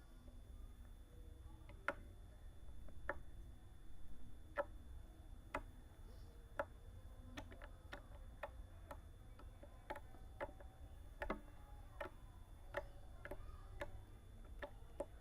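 Homemade milk slime being handled, giving off small, sharp, irregular clicks and pops. The clicks come about once a second at first and grow quicker and more frequent in the second half.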